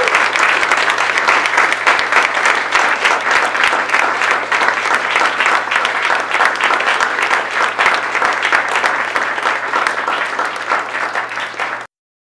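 Audience applauding, many people clapping at once; it cuts off suddenly near the end.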